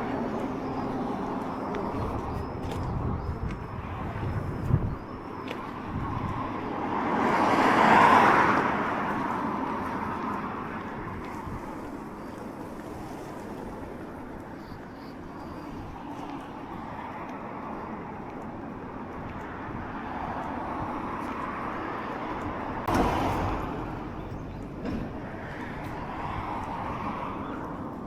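Road traffic: a car passes about eight seconds in, rising and then fading over a steady background of traffic noise. There is a single sharp knock near the end.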